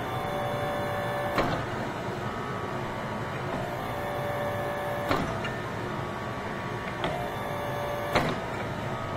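Hydraulic forging press converted from an 8-ton electric log splitter running: its 3-horsepower electric motor and hydraulic pump give a steady whine whose pitch shifts as the ram works on hot steel. Four short sharp clicks sound through it.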